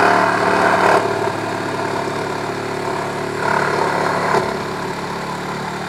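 Ryobi HP one-handed cordless reciprocating saw running at full speed, its blade sawing through a board with nails in it. A steady motor hum runs under a rasping cut that swells about a second in and again around four seconds.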